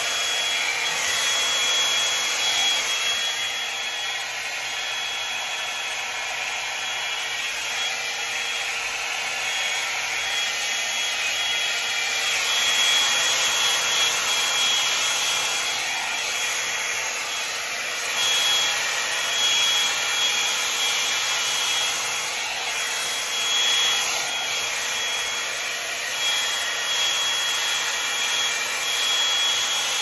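Revlon One-Step hot-air brush (hair dryer and volumizer) running steadily: a constant rush of air with a thin high whine. It swells and eases a little as it is drawn through the hair.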